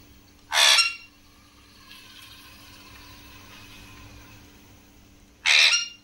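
Alexandrine parakeet giving two short, harsh screeches about five seconds apart, a call the owner takes as a sign of the bird being angry.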